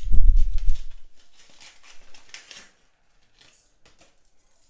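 A heavy low thump, then a scatter of light clicks and rustles as small stainless-steel lock-pick tools are handled, dying away after about three seconds.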